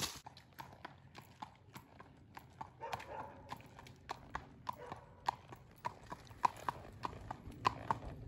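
Hoofbeats of a gaited gelding moving along a paved path: an even, quick clip-clop of sharp, ringing strikes, about three a second.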